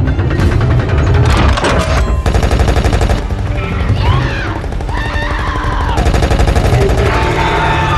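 Rapid automatic cannon fire from a giant robot's multi-barrel arm guns: a dense, fast rattle of shots, with a film score underneath.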